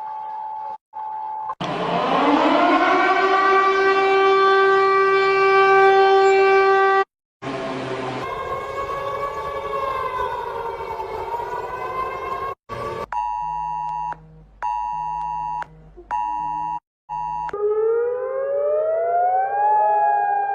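A series of electronic emergency-alert tones, joined by abrupt cuts. First a steady single tone, then a siren-like tone that rises quickly and holds. A wavering tone follows, then pulsed beeps about once a second, and near the end tones gliding upward.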